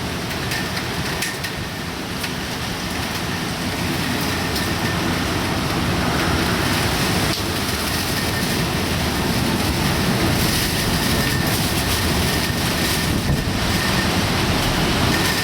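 Typhoon wind and heavy rain: a dense, steady rushing noise that grows gradually louder over the first several seconds.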